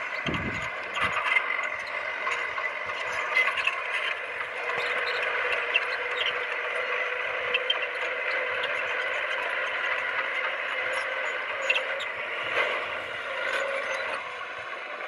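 Heavy earth-moving machinery working: a steady mechanical whine with scattered clanks and rattles.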